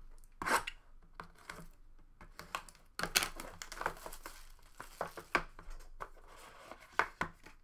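Plastic shrink-wrap crinkling and tearing as a trading card box is unwrapped, with irregular sharp crackles and clicks of the cardboard box being handled.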